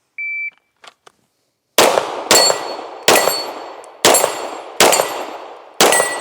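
A shot timer's start beep, then a handgun drawn and fired six times at under about a second apart, with steel targets ringing out after the shots.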